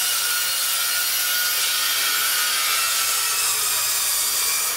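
Metal-cutting chop saw blade running through aluminum handrail pipe, a steady high-pitched whine and hiss with the blade in the cut.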